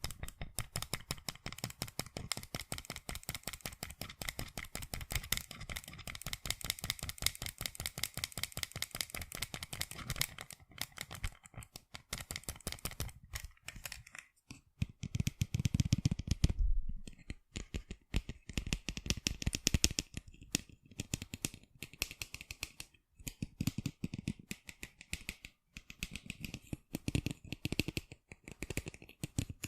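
Fingers tapping rapidly on sunglasses, a quick run of small clicks many times a second. There are a couple of brief pauses near the middle, around which the taps come heavier and deeper.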